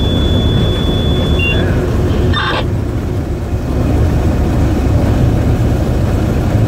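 Steady low rumble of a G12 diesel-electric locomotive heard from inside its cab while under way. A thin, steady high beep sounds for about the first two seconds, and a brief noise comes about two and a half seconds in.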